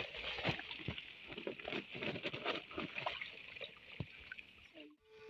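Hand splashing and groping in shallow muddy ditch water among weeds: a run of small irregular splashes and rustles. It cuts off about five seconds in, and a steady hum starts right after.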